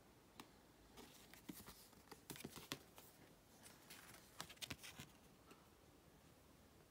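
Faint clicks and rustles of glossy photo cards being handled, one card set down on the stack and another picked up. The handling noises come in a cluster from about a second in until about five seconds in.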